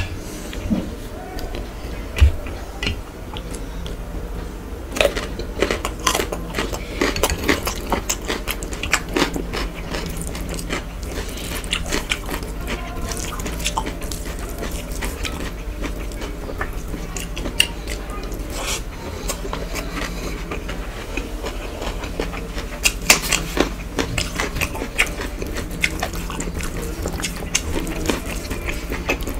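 Fingers mixing cooked rice with spinach by hand on a metal plate: a run of small wet squishes and clicks, over a steady low hum.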